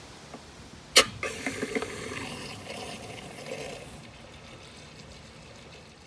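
A sharp clack about a second in, then water from a garden hose rushing into a camper van's fresh-water tank fill inlet, with a few small clicks, slowly fading.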